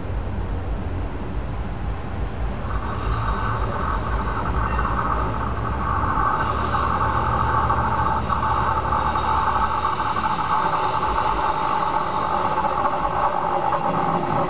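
Esslinger diesel railcar approaching on a curve and passing close by. A low diesel engine rumble is joined, from about three seconds in, by growing wheel-on-rail noise, and from about six seconds by several high steady squealing tones from the wheels on the curve.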